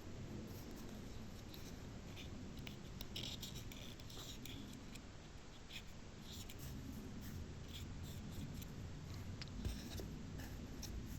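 Faint, irregular scratchy rubbing of a cotton bud scrubbing the dirty contacts inside a car's heater blend door actuator, with a small knock near the end.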